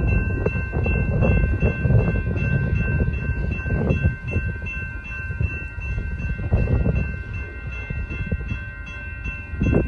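Railroad grade-crossing warning bell ringing steadily at the lowered gate, signalling an approaching train, over a gusty low rumble of wind on the microphone.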